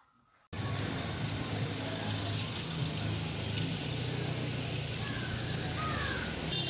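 Street ambience dominated by a steady low rumble of traffic. It starts suddenly about half a second in after silence, with a few faint high chirps near the end.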